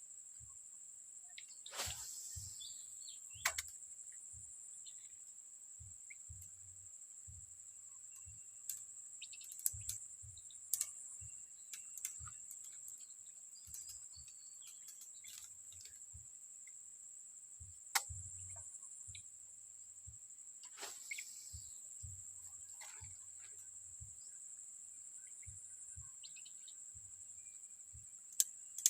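Steady high-pitched insect drone with occasional bird chirps, broken by scattered sharp clicks and knocks, the loudest about 3.5, 10 and 18 seconds in.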